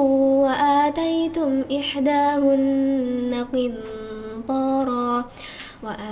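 A woman's voice reciting the Quran in melodic murottal style, holding long drawn-out notes that step between pitches, with a short breath near the end.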